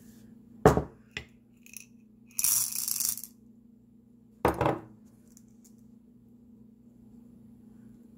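Small freshwater pearls clattering as they are tipped into an open river clamshell, with hard knocks of the shell being handled: a sharp knock about a second in, a short rattle of the pearls, and another knock halfway through.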